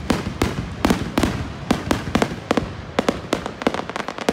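Aerial fireworks bursting in a rapid, irregular barrage of sharp bangs, several a second.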